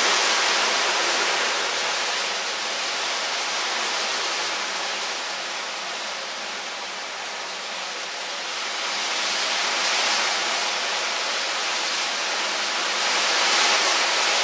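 Hurricane-force wind with driving rain, a steady loud rushing that swells in gusts: strongest at the start, around ten seconds in, and again near the end.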